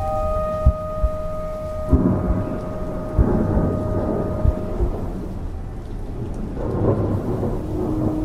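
Alexander 107 French horn holding one long note that ends about five seconds in, over a thunderstorm sound effect: rain, rumbling thunder and scattered low thumps. A lower horn note begins near the end.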